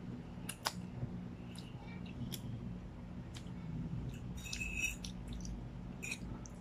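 Close-up eating sounds of spaghetti: strands taken in off a fork, then wet chewing with scattered small mouth clicks. About four and a half seconds in there is a brief scrape of the metal fork on the plate as more spaghetti is twirled. A steady low hum runs underneath.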